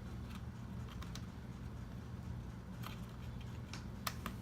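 Light scattered clicks and taps of a laptop RAM stick being handled and fitted into its memory slot, over a steady low hum.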